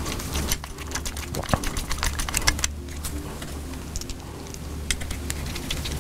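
Irregular small clicks and ticks of a screwdriver working screws into a gimbal's adjustment plate, with a steady low hum underneath.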